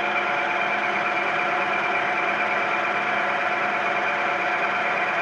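Knee-type vertical milling machine taking a finish pass under automatic power feed: the spindle and feed drive run at a steady level with several steady tones, and the cutter cuts metal evenly the whole time.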